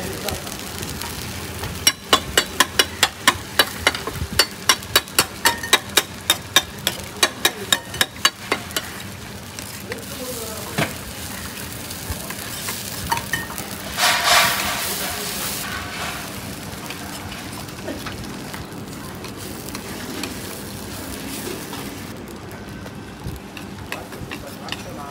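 Metal ladle clacking and scraping against a large iron pan of frying eggs for an oyster omelette, over a steady sizzle. For the first several seconds the ladle strikes the pan about three times a second as the yolks are broken up and stirred. About halfway through, the sizzle rises to a louder hiss for a second or two.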